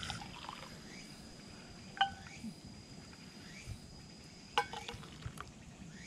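Stainless steel ladle clinking against stainless steel mugs as chai tea is ladled in: two short ringing clinks about two and a half seconds apart, with faint liquid pouring.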